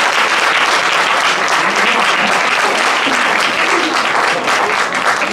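Spectators applauding, a dense steady clapping throughout.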